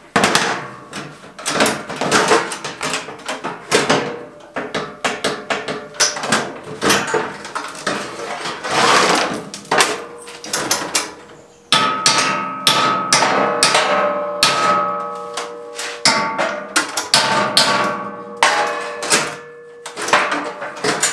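Hand hammer striking a sheet-metal box again and again, knocking an edge down into place; the blows come fast and ring, with a short pause partway through before the hammering resumes.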